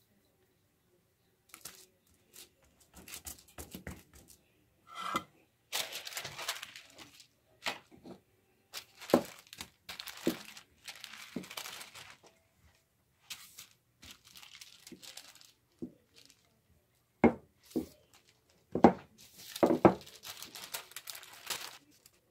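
Baking paper crinkling and rustling as cookie dough is rolled out on it with a wooden rolling pin and pressed by hand, in irregular bursts. A few sharp knocks come near the end.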